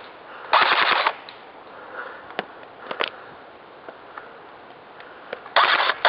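Airsoft rifle firing rapid-fire bursts: one short burst about half a second in and another near the end, each a quick run of sharp mechanical clacks, with a few single clicks in between.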